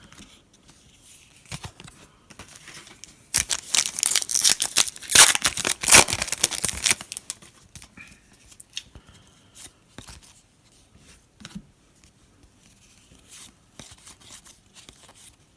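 A Donruss football card pack's wrapper being torn open and crinkled, loud for about four seconds starting a few seconds in, followed by light clicks and rustles of the cards being handled.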